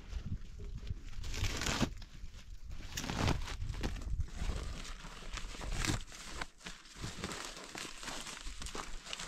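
Irregular rustling and crinkling, as of material being handled, in short scattered bursts over a low rumble that thins out a little past the middle.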